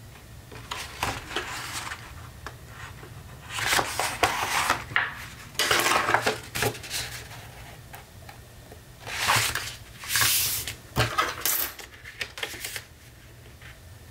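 Heavy cardstock being bent and folded in half by hand, rustling in several short bursts.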